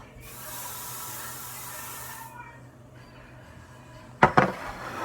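A steady hiss lasting about two seconds that starts and stops abruptly, then a couple of sharp, loud knocks near the end.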